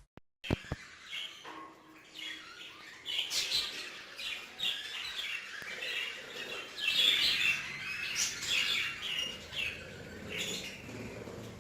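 Budgerigars chirping and chattering in many short, quick calls, growing busier a few seconds in, after a couple of brief clicks at the start.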